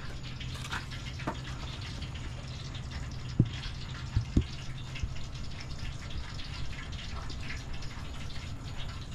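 Seasoning shaken from a shaker container over raw fish fillets in a metal tray: a faint hiss with a few light taps and knocks, the sharpest about three and a half and four and a half seconds in, over a steady low hum.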